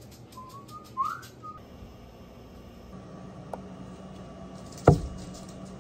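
A brief whistled note that rises in pitch about a second in, then a single sharp thud near the end: a steel-tipped dart striking the dartboard.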